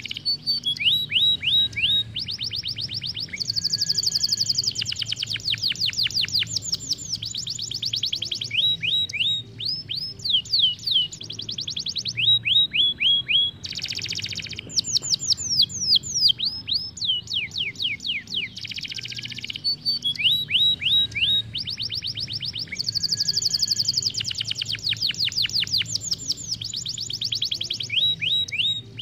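Isabel canary singing a long, fast song: rapid runs of falling whistled notes rolled together, phrase after phrase with short breaks, and a brief buzzy note about halfway through.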